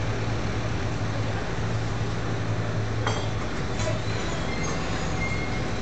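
Coffee-shop background noise: a steady low hum with two light clinks of crockery, about three and four seconds in.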